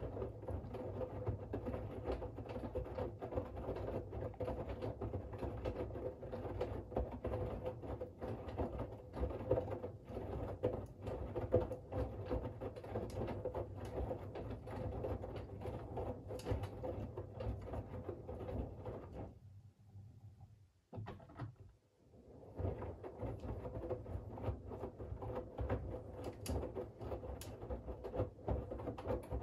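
Siemens iQ700 WG56B2090 front-loading washing machine turning its drum during a wash, with laundry and water tumbling over a steady motor hum. About 20 seconds in, the drum stops for a couple of seconds and then starts turning again, as in the wash rhythm's change of direction.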